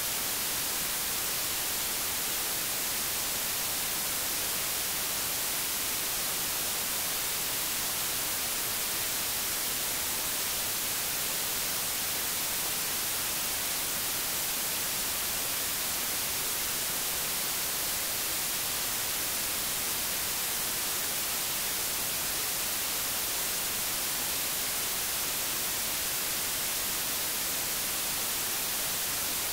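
Steady static hiss from a VHS tape transfer, strongest in the highs, with no other sound over it.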